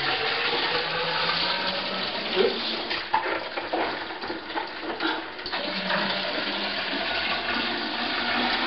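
Water running steadily from a tap or hose into a container whose holes have been plugged, so that it fills up.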